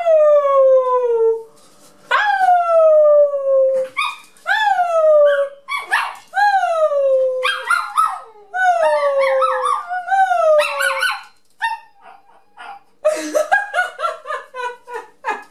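Six-month-old puppy howling: about five drawn-out howls, each sliding down in pitch, followed near the end by a quick run of short yips.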